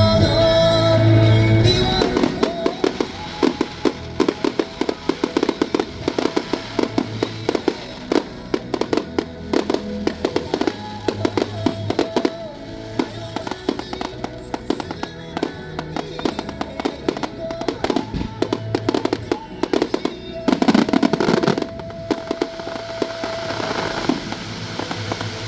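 Music plays loudly for about two seconds, then fireworks crackle densely, with many sharp pops a second, over the music from the show's sound system. The crackling swells into a louder burst about twenty seconds in.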